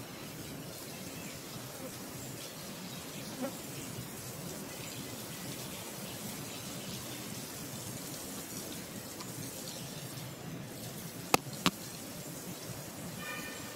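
Steady outdoor ambience with a faint insect hum, broken near the end by two sharp clicks about a third of a second apart, followed shortly by a brief high call.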